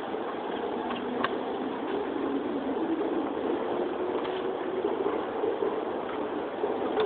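Steady hum of city street traffic, with a single sharp click a little over a second in.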